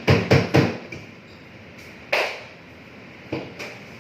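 Kitchenware clattering: a quick run of three or four sharp knocks in the first second, one louder ringing clank about two seconds in, and two lighter knocks near the end.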